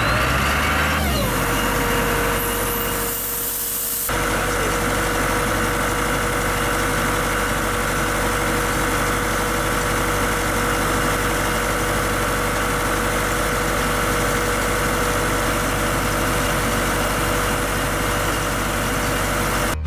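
Towable air compressor's engine running steadily, with a whine falling in pitch about a second in.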